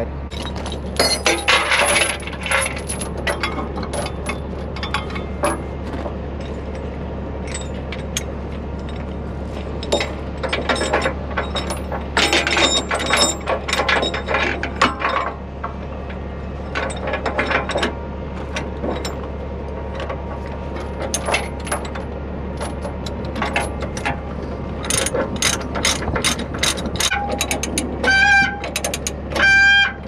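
Steel tie-down chain clanking and a ratchet load binder being worked by hand, its pawl clicking in irregular runs, while the chain is tightened over a dozer on a lowboy trailer. A steady low hum runs underneath, and a brief, loud pitched squawk comes near the end.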